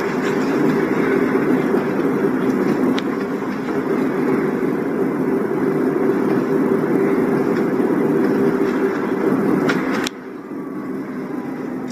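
Steady road and tyre noise inside the cabin of a Waymo driverless Jaguar I-Pace electric car on the move, with no engine sound. It drops suddenly to a quieter level about ten seconds in.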